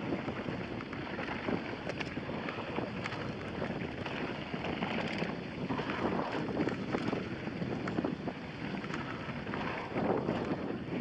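Wind rushing over the microphone of a moving mountain bike, with the tyres rolling on a dirt trail and frequent small knocks and rattles from the bike over bumps.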